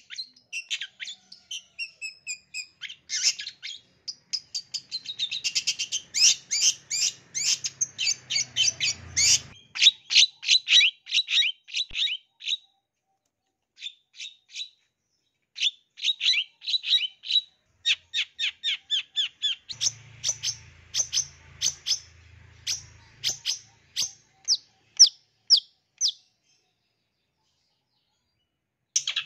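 Long-tailed shrike singing in rapid runs of short, sharp, high chirps, twice breaking off for a few seconds and starting again near the end.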